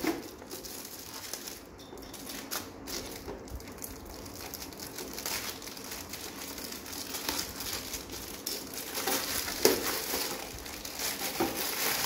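Clear plastic wrap crinkling and crackling as hands grip and pull it off a pack of plastic bottles, getting busier and louder near the end.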